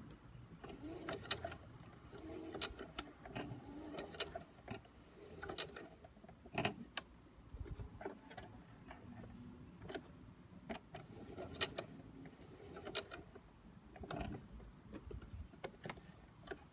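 Light, irregular clicks and knocks, roughly one a second, from handling at a Singer Heavy Duty sewing machine once its motor has stopped sewing.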